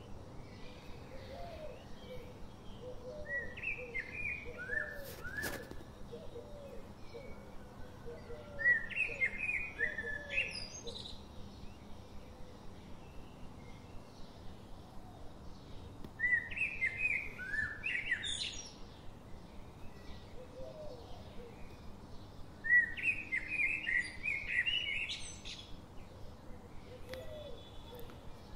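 Songbird singing in short bursts of quick, falling whistled notes, four phrases several seconds apart, over a faint background with a steady light ticking and one sharp click about five seconds in.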